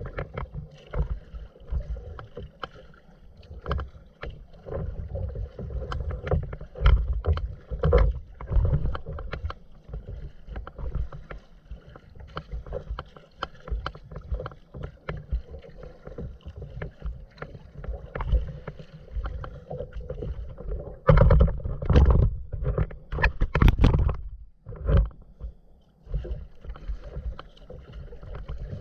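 Water splashing and lapping against a kayak's hull as it is paddled through choppy water: an irregular run of short splashes, with a louder, busier stretch of splashing about three-quarters of the way in that lasts around three seconds.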